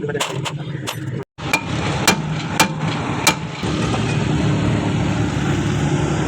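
Sharp hammer blows on metal brake parts, about seven irregular strikes over the first three and a half seconds, over a steady low mechanical hum that gets louder near the middle.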